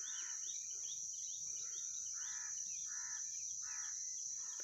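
Steady high-pitched chorus of insects, with quick small chirps over it and four short calls, less than a second apart, in the second half.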